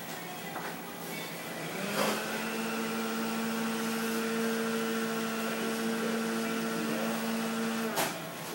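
Electric hair clippers switched on with a click about two seconds in, running with a steady hum for about six seconds, then clicked off near the end.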